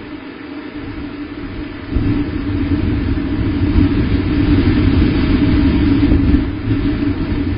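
Wind rumbling and buffeting on an outdoor nest-camera microphone, a low noisy roar that swells about two seconds in and stays up.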